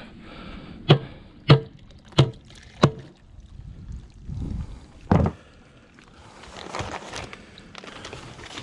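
Four sharp knocks about two-thirds of a second apart: the snap-jacket form around a dock piling being pounded, which lets some of the water out of it. A duller thump follows a few seconds in, then rustling of a paper bag of concrete mix near the end.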